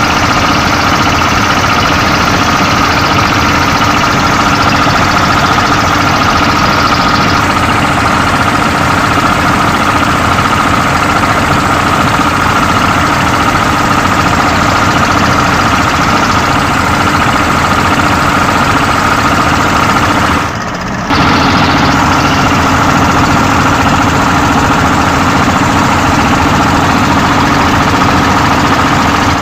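Small fishing boat's engine running steadily, a held hum with a higher whine over a constant rushing noise, dipping briefly about twenty seconds in.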